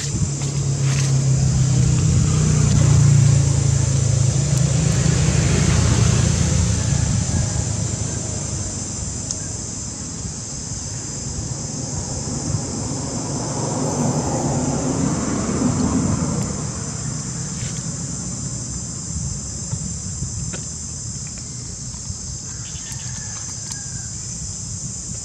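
Outdoor ambience with a motor vehicle's engine passing, loudest in the first several seconds and swelling again around the middle. A steady high insect drone runs underneath.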